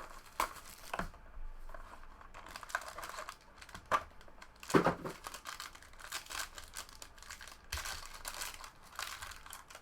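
Packaging of a box of trading cards being opened by hand: crinkling and tearing, with scattered rustles and clicks and a few sharper bursts.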